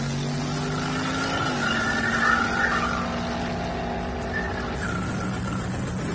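Drag-racing cars' engines at full throttle running away down the strip. The engine note climbs, drops at a gear change about a second and a half in, then holds steady and grows fainter near the end.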